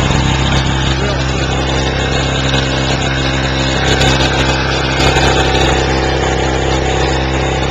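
ETQ TG1200 portable generator's small two-stroke engine running steadily at constant speed, a loud, unchanging hum.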